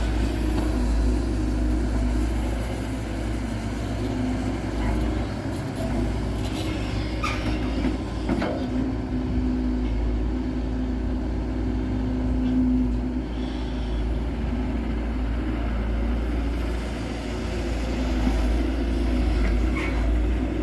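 Dump truck's diesel engine running steadily with a low rumble, with a few brief knocks about seven to eight seconds in.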